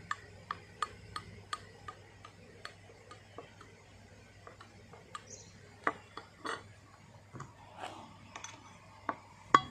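Maruti Suzuki Swift Dzire brake caliper guide pin knocking in its carrier bracket as it is rocked by hand: a run of light clicks about three a second, then scattered louder knocks, the loudest near the end. The pin's bushing is worn, and this play is the source of the knocking heard on rough roads.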